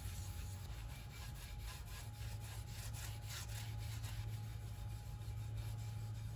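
Cloth rag rubbed back and forth over a walnut board, wiping on a finish coat, in quick repeated strokes over a steady low hum.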